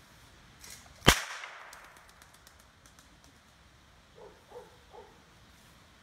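One sharp, loud crack about a second in that rings away over about half a second, with a softer rustle just before it. Three short, fainter sounds follow near the end.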